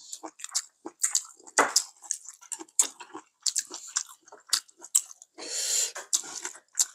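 Close-miked eating: chewing and mouth sounds with small clicks of chopsticks and spoons against bowls, as two people eat soup with rice and side dishes. A longer rushing sound comes about five and a half seconds in.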